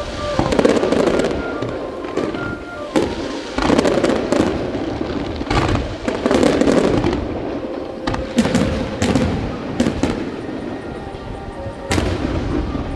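Aerial fireworks bursting in rapid succession, a run of sharp cracks and booms with loud clusters every couple of seconds, over music.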